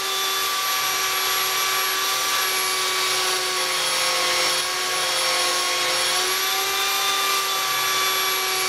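Electric belt sander clamped on its side, running with a steady motor whine over the hiss of the belt as a wooden board's edge is pressed against it and sanded to shape. The whine dips slightly in pitch around the middle, as the board loads the belt.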